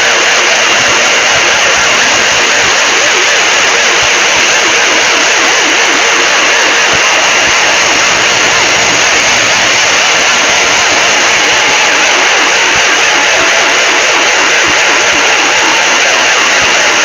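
Very loud, heavily distorted Emergency Alert System-style alarm audio, blown out into a steady wall of harsh static with no clear tones and no break.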